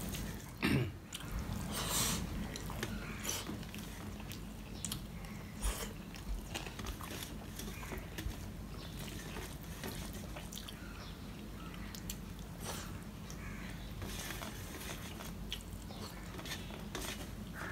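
A man eating rice by hand: chewing and wet mouth sounds with many small scattered clicks, as his fingers work the rice on a steel plate.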